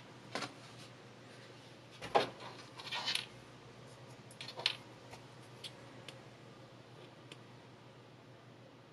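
Quiet handling sounds as the forged cleaver and its small plastic blade protectors are handled: a light knock about two seconds in, a short rustle, then a few soft clicks and ticks. The second half is quiet room tone.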